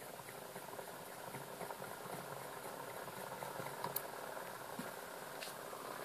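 A hand-spun magnet rotor of a homemade generator, a disc of magnets on a roller-skate wheel bearing, whirring and rattling as it spins, growing slowly louder, with a sharp click about four seconds in.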